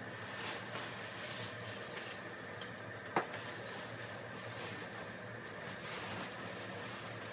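Clothing rustling and being handled while someone changes, over a steady low room hum, with one sharp click about three seconds in.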